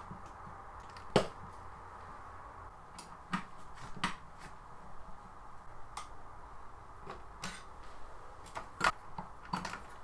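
Sparse small clicks and taps of plastic wire connectors and a screwdriver being handled on a plasma TV's power supply board, a click every second or two over faint steady room tone.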